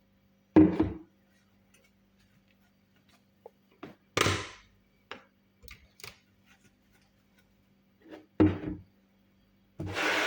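Kitchen utensils and containers being handled: a few separate thumps and knocks, with short bursts of scraping or rustling about four seconds in and near the end, over a faint steady hum.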